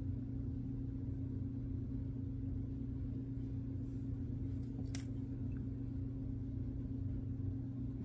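Steady low background hum, with one small sharp click about five seconds in as tiny plastic coupler parts are handled and fitted together.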